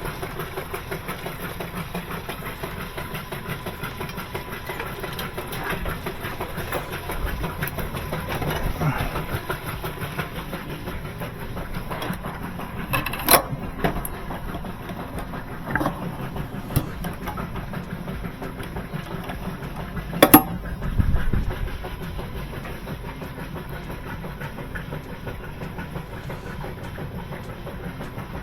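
A machine running steadily with a fast, even clatter, broken by a few sharp metallic clanks near the middle.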